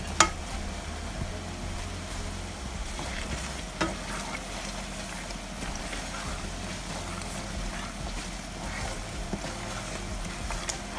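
Pieces of smoked turkey tipped from a plate into a pan of thick tomato stew, with a sharp knock just after the start, then a spoon stirring them in over the steady noise of the stew cooking; a second, smaller knock comes near four seconds in.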